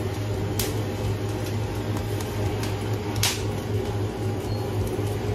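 Steady machine hum and hiss, like a fan or cooling unit running, with two brief sharp clicks, one about half a second in and one about three seconds in.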